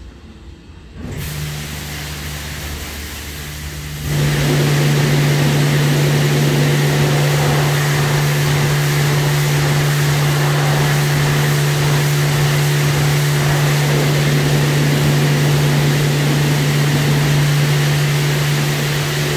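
WashTec SoftCare2 Pro automatic car wash machinery starting up: a steady motor hum comes in about a second in, then a much louder, even rushing sound with a strong hum joins about four seconds in and runs on steadily.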